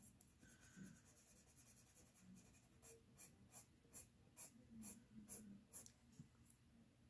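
Faint scratching of a Prismacolor colored pencil on paper, made by short individual strokes laying in hair strands. The strokes are most distinct from about three seconds in, at roughly two to three a second.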